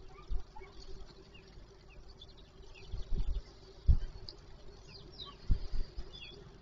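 Faint chirps of small birds through a security camera's built-in microphone, over a steady low hum. A few dull low thumps break in, the loudest about four seconds in.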